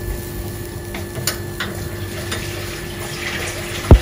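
Wooden spoon stirring thin kadhi batter in an aluminium pot, with a few light clicks of the spoon against the pot over a steady hiss. Near the end there is a single heavy low thump, the loudest sound.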